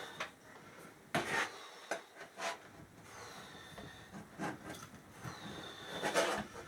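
Parts being handled and fitted together during assembly: irregular knocks, taps and scrapes, with two brief squeaks.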